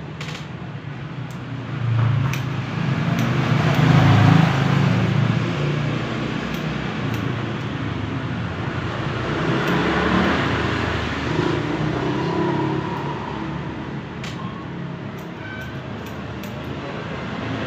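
Low rumble of passing road vehicles that swells loudest about two to five seconds in and again around ten seconds in, over a steady background hiss.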